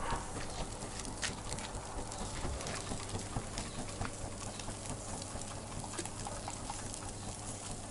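Hot apricot-wood charcoal crackling with scattered irregular pops and clicks under freshly laid skewers of shashlik on high heat.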